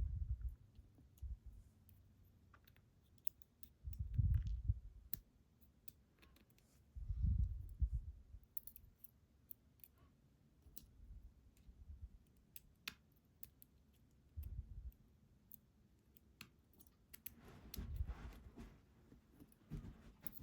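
Small, scattered clicks of lock pins and springs being handled and loaded back into the pin chambers of a gutted challenge lock, with a few dull low thumps from handling.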